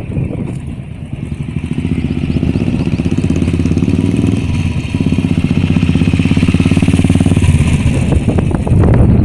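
Royal Enfield single-cylinder engine running through a Moto Torque Shark aftermarket exhaust, with a fast, even thump of firing pulses. It grows louder over the first couple of seconds, eases briefly about five seconds in, then runs on steadily and gets louder near the end.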